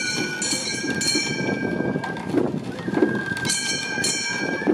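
Gion-bayashi festival music from a float: bamboo flutes playing held high notes, strongest at the start and again from about three and a half seconds in, over a rough low rumble.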